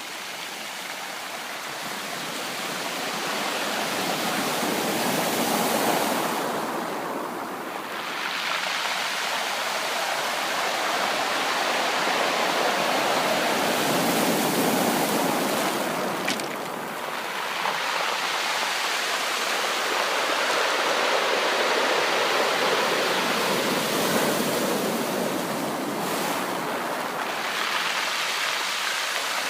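Sea waves washing in and out: a continuous rush of surf that swells and eases in slow surges.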